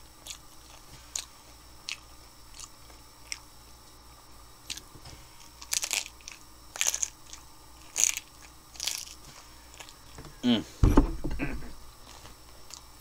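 Crunchy hard taco shells filled with Salisbury steak and mac and cheese being bitten and chewed close to the microphone: scattered crisp crunches, louder and more frequent in the middle. Near the end there is a short voiced murmur and a low thump.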